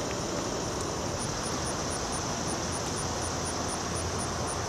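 Steady outdoor background noise, a low rumble under a hiss, with a faint high-pitched ticking about four times a second from about a second in.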